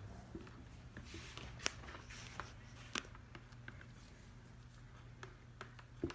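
Thick soap batter being scraped out of a plastic mixing container into a loaf mould: faint scraping with scattered light clicks and knocks, the sharpest about one and a half and three seconds in, over a low steady hum.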